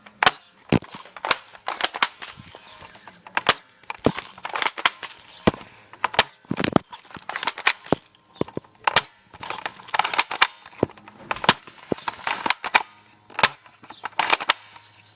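Airsoft guns firing many sharp, irregular shots, some single and some bunched in quick strings.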